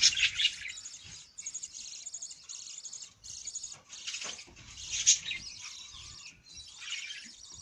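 Budgerigars chirping and chattering in quick, high-pitched bursts with short gaps, loudest right at the start and again about five seconds in.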